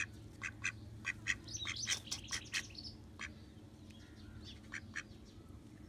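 A duck dabbling and drinking at a clay water bowl: short, sharp wet clicks of the bill in the water, about three a second, thinning out after about three seconds.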